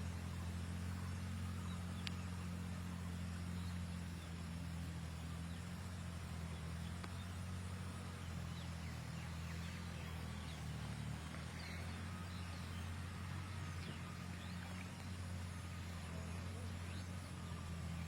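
Steady low hum with faint, scattered high chirps, like small birds, over it.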